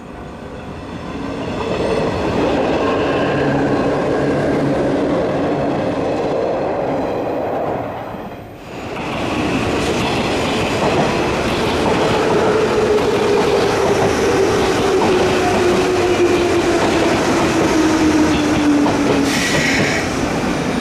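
JR 103 series electric commuter train running on the track, its running and wheel noise building up as it approaches. After a break, another 103 series pulls into a platform, with a tone falling slowly in pitch as it slows and a short high hiss near the end.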